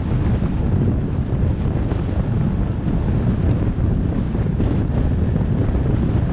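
Steady wind rush buffeting the microphone of a camera on a moving vehicle, with road noise blended in. It is a loud, even, low-heavy noise with no distinct events.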